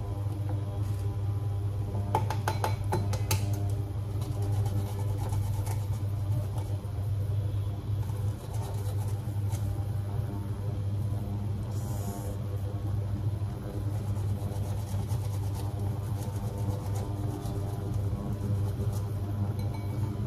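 A steady low hum throughout. About two to three seconds in there is a cluster of light clicks and taps, from food being handled in a ceramic bowl.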